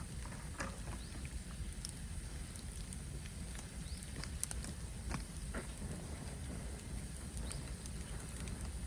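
Bamboo burning in a bonfire: a steady low rumble of flame with scattered crackles and pops and a few short whistling squeaks, with one sharper pop about four and a half seconds in.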